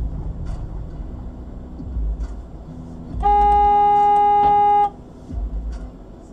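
Car horn sounding in one long steady blast of about a second and a half, starting about three seconds in, over a low rumble of engine and road noise heard from inside a moving car.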